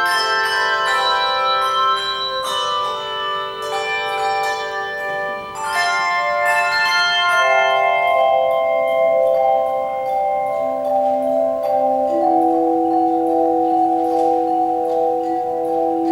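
A handbell choir playing an Irish medley: many bells of different pitches struck and left ringing, with overlapping notes. After about seven seconds the notes change less often and longer chords are held.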